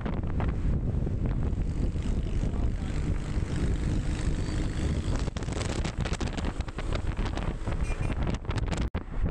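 Wind buffeting the microphone of a camera on a moving vehicle, over steady road and engine noise, with a brief drop-out near the end.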